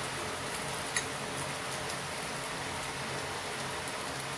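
Cutlets shallow-frying in oil on a tawa: a steady sizzle with fine crackling, and one sharp tick about a second in.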